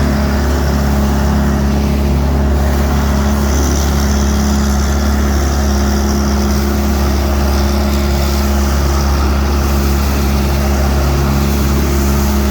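Leaf vacuum machine running steadily: a loud, constant-pitched engine-and-fan drone.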